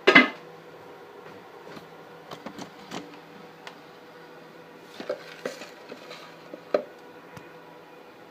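Plastic parts of a countertop ice cream maker being handled: a sharp scraping clunk as the lid comes off, then a few light plastic knocks and clicks. A faint steady hum sits underneath.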